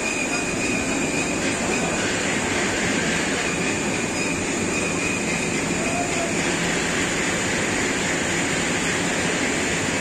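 Belt-and-pulley driven wool-processing machinery running, a steady mechanical din with a thin high whine over it.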